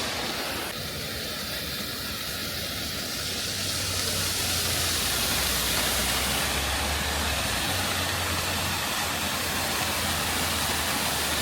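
Düden Waterfall pouring, a steady dense rush of falling water with a low rumble beneath, growing a little louder about four seconds in. The falls are still flowing, though with much less water than in spring.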